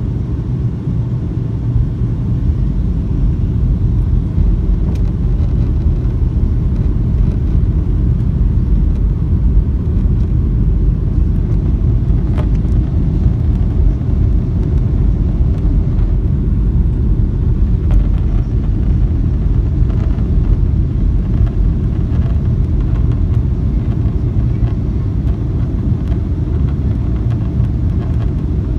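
Steady low rumble of airliner cabin noise in flight: engine and rushing airflow heard from inside the passenger cabin.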